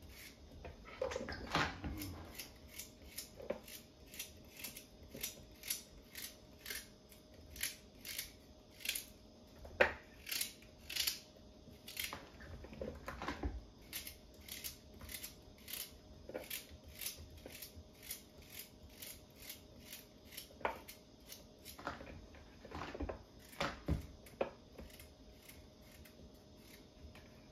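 Kitchen knife cutting raw vegetables such as carrot and chayote (chocho) on a cutting board: a run of crisp cuts, roughly two a second, with a few louder knocks of the blade on the board.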